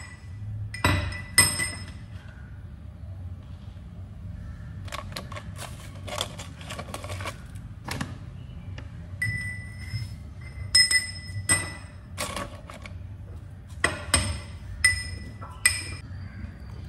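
Steel pestle striking and clinking inside a small stainless-steel mortar, in several bursts of sharp metallic clinks with a bright ring, over a steady low hum.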